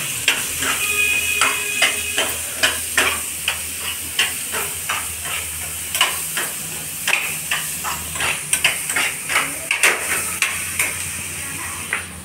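Metal spoon clinking and scraping against a metal saucepan as chopped raw mango is stirred on a gas stove, in irregular clinks about two or three a second, over a steady sizzling hiss from the cooking pan.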